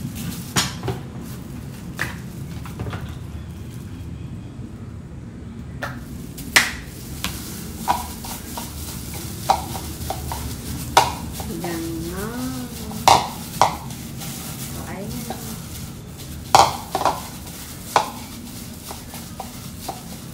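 A plastic-gloved hand mixing tuna and mayonnaise in a ceramic bowl, with about a dozen sharp knocks and clicks against the bowl at irregular intervals.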